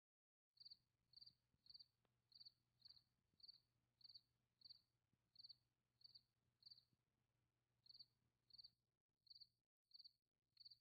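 Faint insect chirping: short high chirps repeating evenly, about one every two-thirds of a second, over a faint low hum.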